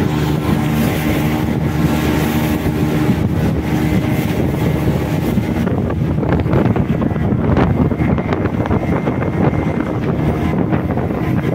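A boat's engine runs steadily while the boat is under way, with water rushing past the hull and wind buffeting the microphone. The steady engine tone is clearest in the first few seconds and then gives way to a rougher rush of wind and water.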